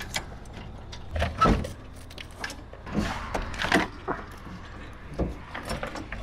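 Radiator with plastic end tanks being worked loose from the condenser and lifted out of the engine bay: irregular clunks, knocks and scraping, the loudest knock about a second and a half in.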